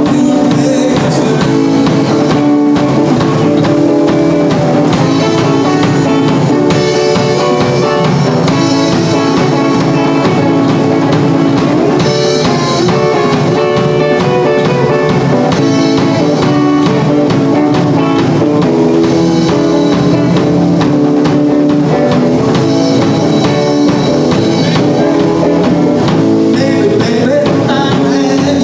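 Live 1950s-style rock and roll trio playing: electric guitar over upright bass and a drum kit, with a steady beat.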